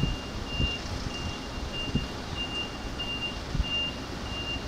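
A high electronic warning beep repeating evenly, about every 0.6 seconds, starting at the very beginning, over a steady low rumble with a few dull thumps.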